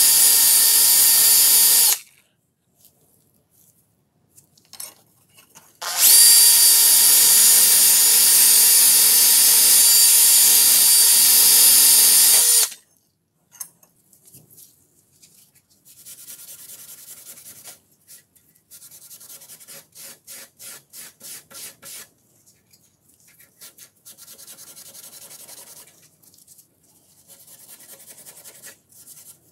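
Rotary tool with a sanding drum running at high speed and grinding rust off the steel jaw of a vernier caliper: a loud, high whine that stops about 2 seconds in and runs again from about 6 to 12 seconds. In the second half, quieter rubbing strokes by hand on the caliper, at times about three strokes a second.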